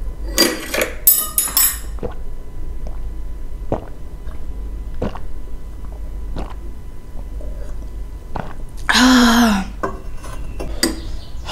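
Eating at a table: a utensil clinks against a bowl every second or so, after a louder, busier stretch of eating noise in the first two seconds. A short voiced sound comes about nine seconds in.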